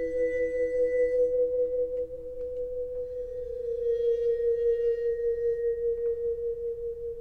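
Vibraphone bowed with a cello bow, pedal held down, sustaining two long notes that ring together; the lower one fades out about three seconds in while the upper one rings on. With the motor on, the tone pulses in a steady, even tremolo.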